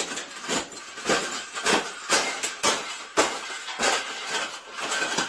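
A round wire bird cage being stomped flat under boots: repeated rattling, crunching wire impacts, about two a second.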